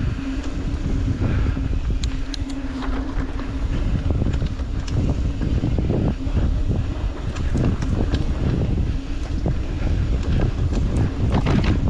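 Mountain bike descending a dirt singletrack: wind buffeting the camera microphone with a heavy rumble, knobby tyres on dirt and the bike rattling and clicking over bumps. A steady low buzz runs for the first few seconds, drops out, and comes back in the second half.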